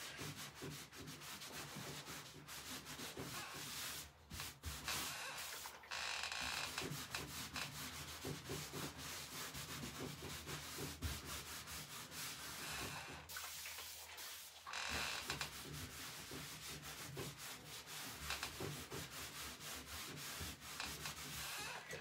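Cloth rubbing over a chalk-painted pine cabinet panel, wiping back a blue paint wash; a steady rubbing with a couple of short pauses.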